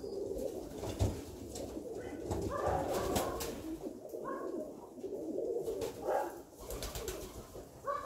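A flock of Alföldi-Körösi tumbler pigeons cooing again and again, with a few sharp taps of beaks pecking grain off a hard floor.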